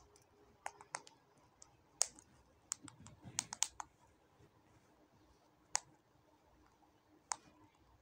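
A parakeet's beak picking seeds and split pulses from a steel bowl: irregular sharp clicks and taps, a dozen or so, closely bunched in the first half and more widely spaced near the end.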